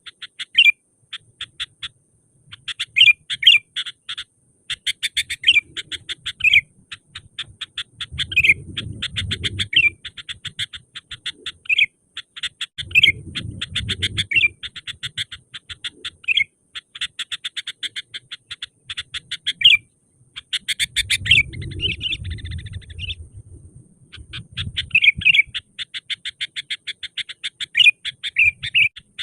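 Sooty-headed bulbul (kutilang) calling: a fast, continuous chatter of short notes broken by louder slurred whistles. Low rumbling noise comes in three times, about 8, 13 and 21 seconds in.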